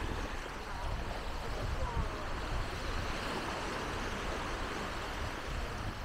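Beach ambience: a steady wash of noise with a low rumble underneath and faint, indistinct voices of people around.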